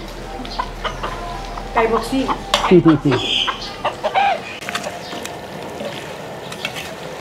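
A rooster calling, its loudest calls about two to three seconds in.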